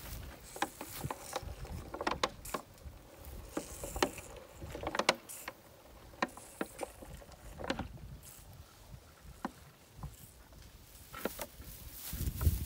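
A young elephant drinks from a plastic milk bottle held up in its trunk. Irregular small crackles and clicks come from the bottle and from the drinking. Low wind rumble on the microphone rises near the end.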